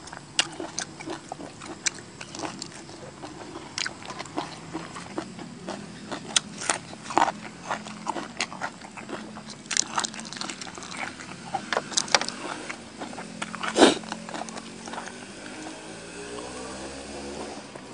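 Irregular sharp crackles and clicks of raw shrimp shells being peeled apart by hand, with the moist sounds of food being handled. The loudest crack comes about fourteen seconds in.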